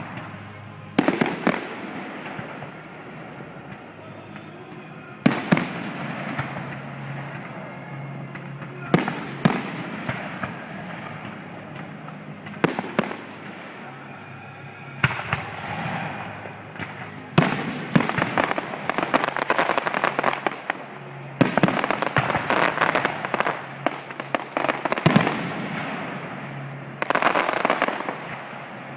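Fireworks display: single aerial shells bursting with sharp bangs every few seconds, then dense volleys of crackling and popping bursts through the second half.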